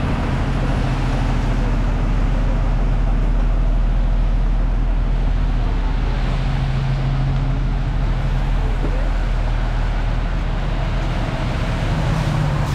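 Street traffic in the rain: a steady low rumble and hum of vehicle engines over an even hiss of rain and wet road.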